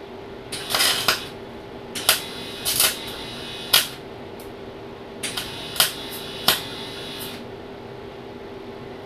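Electric arc welder laying a series of short tack welds onto a sheared bolt stub to join a new bolt to it: about eight brief arc bursts, the first and longest about half a second in, over the steady hum of the welding machine.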